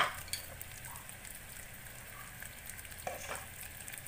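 Thickened sugar syrup boiling hard in a stainless steel pan, a steady bubbling hiss. There is a sharp tap right at the start and a fainter one about three seconds in.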